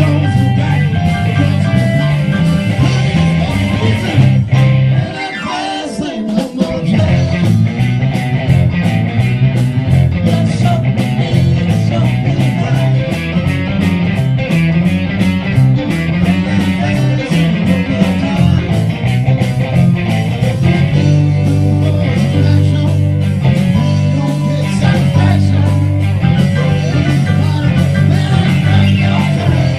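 Rock music with guitar and a steady beat, dipping briefly about five seconds in.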